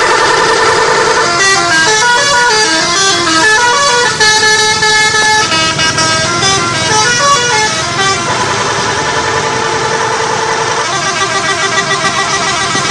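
Bus 'telolet' horn, a multi-tone electric horn, playing a tune of quick stepping notes broken by longer held chords.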